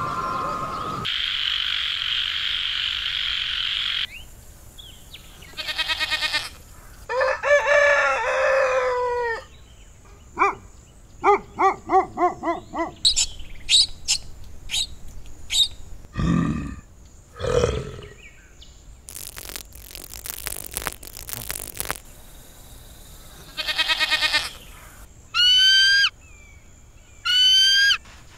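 A run of different animal calls played one after another: a hissing noise, then trills, pitched calls and evenly repeated pulses, two low calls, a long burst of rapid clicks, and near the end two sweeping whistles that rise and fall.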